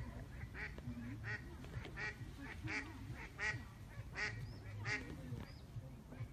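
Waterfowl calling in a series of short, repeated calls, about one every two-thirds of a second, loudest between about three and five seconds in.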